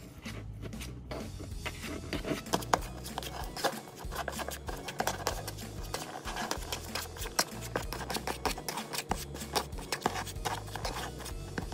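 A metal fork mashing hard-boiled eggs in a plastic bowl: rapid, irregular clicks and scrapes of the fork against the bowl, over low background music.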